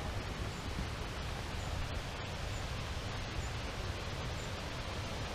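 Steady rushing outdoor noise with an uneven low rumble underneath.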